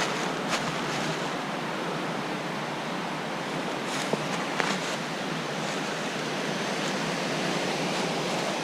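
Steady rush of a small waterfall, water falling over rocks, with a few faint ticks.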